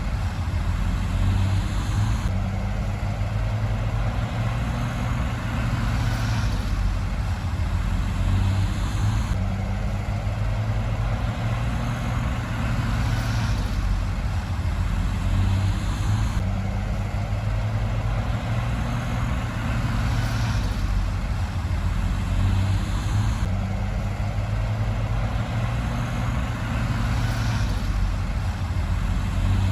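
Komatsu D53P bulldozer's diesel engine running steadily as the machine works, its note swelling and easing in a regular cycle about every seven seconds.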